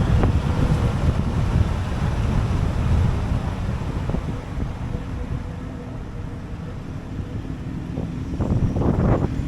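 Ford Transit Custom van on the move: a steady low rumble of engine and road noise, growing louder over the last couple of seconds.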